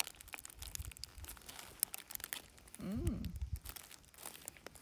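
Paper wrapper crinkling and the crust of an empanada crackling as it is torn apart by hand, in many small crackles. A short rising-and-falling voice sound about three seconds in.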